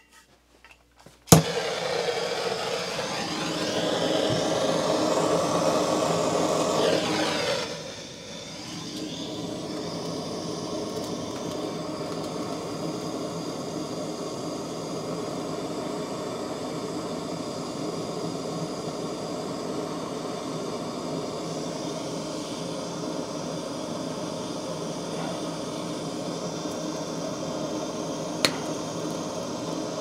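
Handheld gas torch lit with a sharp click about a second in, then burning with a steady hiss, heating a copper pipe joint to sweat on a ball valve. The hiss is louder for the first several seconds and drops to a quieter steady hiss about seven seconds in; a single short click near the end.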